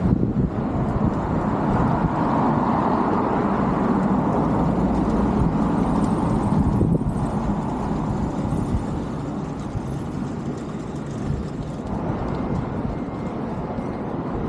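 A vehicle passing close by: a rushing noise that swells over the first couple of seconds, holds, then eases off after about eight seconds, with a faint high whine in the middle.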